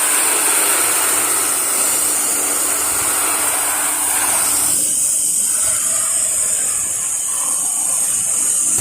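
Pressure washer spray hissing steadily as the wand sprays water onto the house, with a faint steady hum underneath; the hiss thins somewhat about five seconds in.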